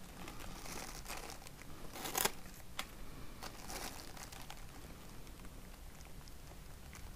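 Cling film wrapped around a beaded-wire tree's branches crinkling and rustling as the tree is handled, with a few sharper crackles around two to three seconds in.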